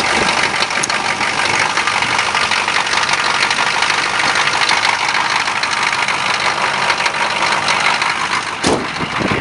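Chevrolet K5 Blazer's 6.2-litre diesel V8 idling steadily just after a cold start.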